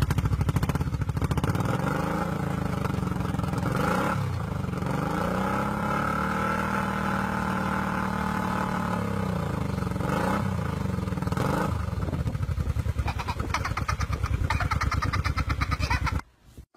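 Motorcycle engine running and being revved: the pitch rises and falls, holds at higher revs for a few seconds mid-way, then drops back. The sound cuts off abruptly near the end.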